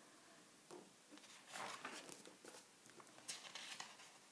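Faint rustle of a book's paper pages being turned by hand: two soft swishes, the first about a second and a half in and the second near the end.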